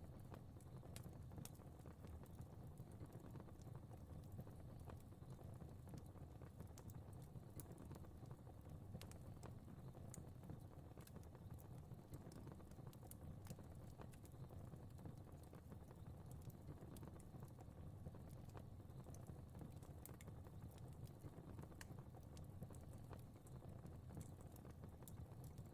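Faint crackling fire: a soft, steady low rumble with small pops and ticks scattered irregularly throughout.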